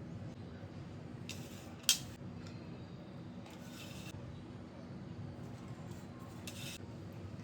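Three short scrapes of a kitchen utensil against cookware, with a single sharp clink about two seconds in, over a steady low hum.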